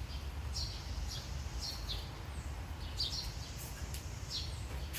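A bird chirping over and over, a short high chirp about once a second, over a steady low hum.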